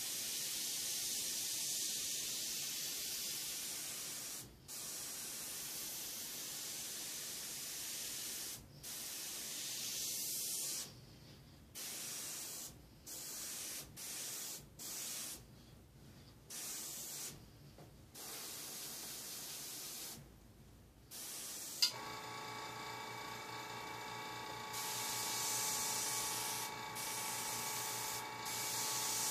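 Airbrush spraying paint in a hiss of stop-and-start bursts, each lasting a second or a few seconds as the trigger is worked. About three-quarters of the way through there is a sharp click and then a steady motor hum under the spray, the airbrush's air compressor kicking on.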